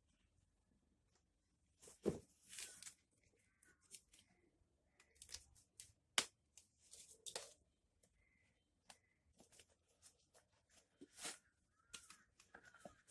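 Faint handling noise: scattered rustles, light taps and clicks, with a sharper knock about 2 s in and another about 6 s in.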